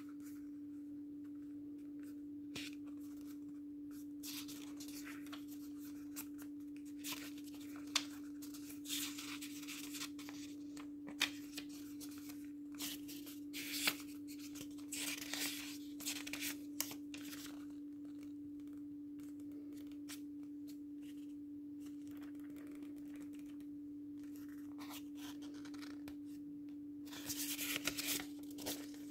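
Paper instruction booklet being unfolded and its pages flipped by hand: scattered rustles and crinkles, busiest in the first half and again near the end, over a steady low hum.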